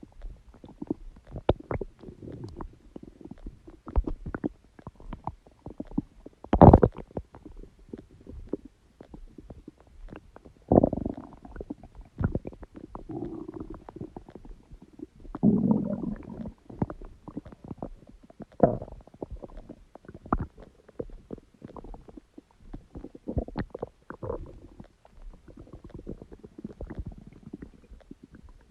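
Human stomach rumbling: irregular gurgles and short squelching pops. The loudest is a sharp pop about six and a half seconds in, with longer gurgles around eleven and sixteen seconds.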